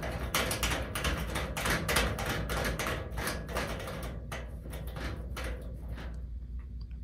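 Combination lock dial on a locker being spun round several times, clicking rapidly at several clicks a second; the clicking thins out and nearly stops near the end.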